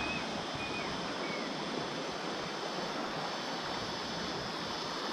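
Creek water running steadily over a shallow causeway and riffles, with a constant high insect drone and a few short high chirps in the first second and a half.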